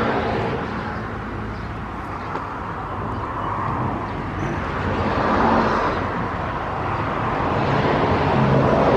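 Road traffic noise: a steady hiss of passing vehicles that swells about halfway through and again near the end.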